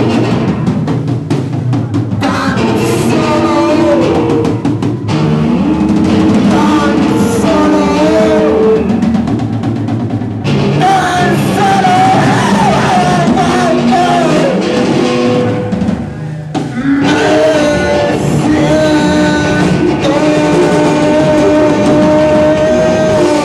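Loud live band music: a drum kit and bass under a wavering melodic line that slides between pitches and holds long notes, with a short drop in the playing about two-thirds of the way in.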